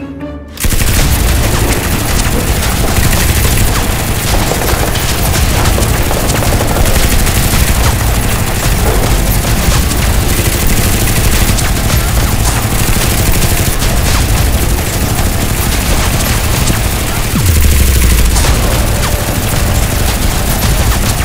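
Continuous rapid automatic gunfire, a dense fusillade that starts abruptly about half a second in and runs on without a break. A heavier low boom stands out about three-quarters of the way through.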